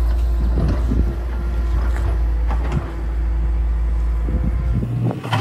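L&T-Komatsu PC200 hydraulic excavator's diesel engine running under load with a steady low drone, with scattered knocks as the bucket works over the truck. The sound changes abruptly near the end to a different steady hum.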